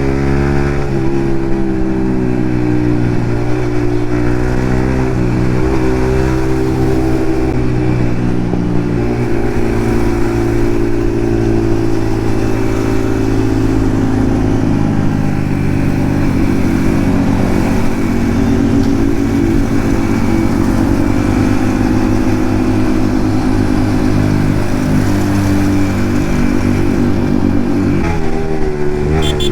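Yamaha MT-15's single-cylinder engine with an aftermarket Akrapovic exhaust running while riding, its pitch rising and falling gently several times with the throttle.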